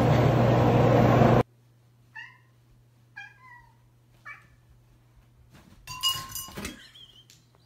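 A domestic cat meowing three times, short calls each falling in pitch, about a second apart. They follow a loud steady rushing noise that cuts off abruptly, and are followed near the end by a burst of louder mixed noise.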